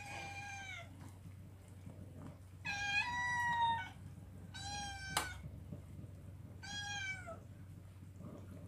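A cat meowing four times, high drawn-out calls that drop in pitch at the end, the second the longest and loudest. One sharp clink about five seconds in.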